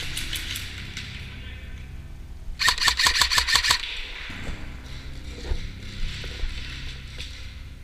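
Airsoft rifle firing: a few faint shots at the very start, then about two and a half seconds in a rapid, evenly spaced burst of about nine sharp shots lasting just over a second.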